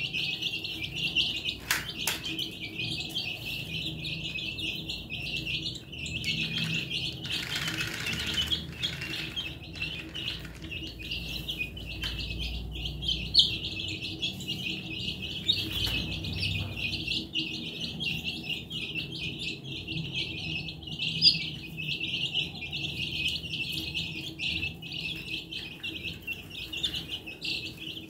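A flock of young chicken chicks peeping continuously, many high chirps overlapping into one unbroken chorus.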